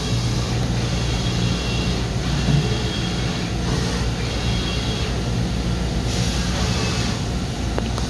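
2015 Mazak VCN 530C CNC vertical machining center running with a steady low hum. A high whine comes and goes several times as its axes make rapid moves, and there is a single click near the end.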